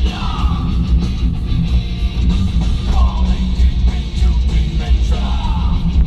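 Loud rock music with a singing voice over a heavy bass beat.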